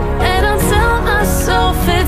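Background pop song with a singing voice over a steady instrumental backing.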